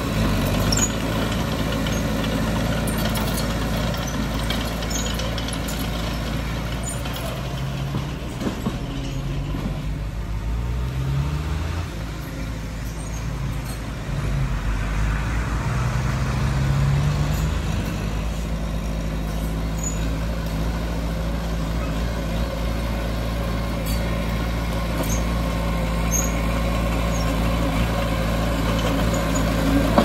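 Heavy diesel engine of earthmoving machinery running steadily, its note rising several times between about 8 and 18 seconds in before settling back.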